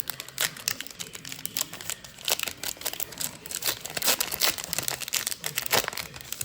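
Crinkling and crackling of baseball card pack wrapping as the cards are handled, in a dense, irregular run that is busiest in the middle.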